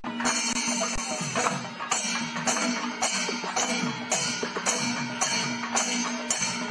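Percussion music: drums under crisp, high strikes in a steady beat, about two strikes a second.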